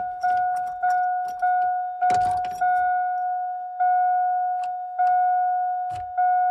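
A GMC Sierra pickup's dashboard warning chime dinging over and over, a little under two dings a second at first, slowing to about one ding a second after roughly three seconds. Keys and switches click and rattle in the early part, loudest about two seconds in.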